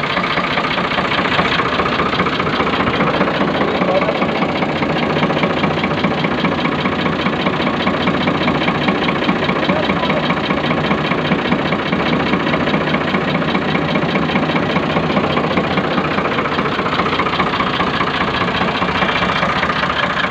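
Ford 4610 tractor's three-cylinder diesel engine running steadily, close up.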